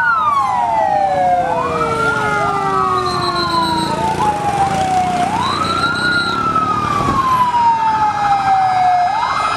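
Several fire-engine sirens wailing together. The main siren rises quickly and then falls slowly, about every four seconds, with other sirens sweeping over it.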